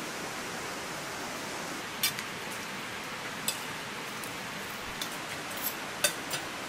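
Metal spoons and forks clinking against ceramic plates as people eat: about six short clinks, the loudest about two seconds in and again near the end, over a steady hiss.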